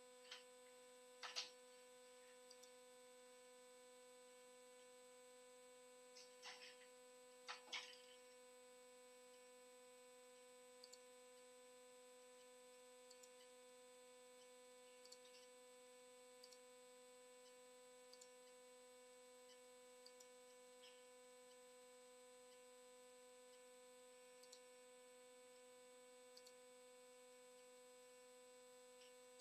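Near silence: a faint steady electrical hum with scattered faint clicks, three of them a little stronger within the first eight seconds.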